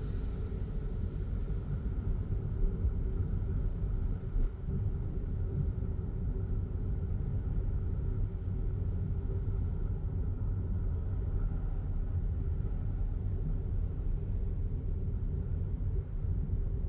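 Car driving along a city road, heard inside the cabin: a steady low rumble of road and engine noise.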